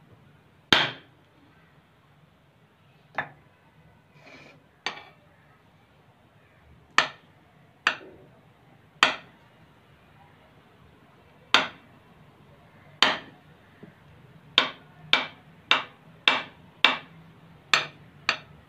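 Kitchen knife chopping a bar of soap into small pieces, the blade knocking sharply on the countertop with each cut. The knocks are spaced out at first and come quicker, under two a second, near the end.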